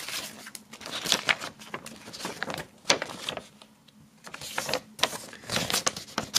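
Rustling and crinkling of a folded paper poster being opened out and handled: a run of irregular sharp crackles, with a short lull about halfway through.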